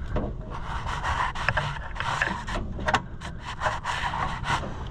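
Irregular rubbing, scraping and small clicks of a throttle cable being worked by hand through the tractor's sheet-metal body.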